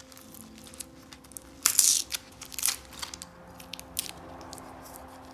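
Tissue paper wrapped round a potted orchid crinkling and rustling as a stuck plastic plant label is tugged out of it, with a loud crackle a little under two seconds in and a few shorter crackles after.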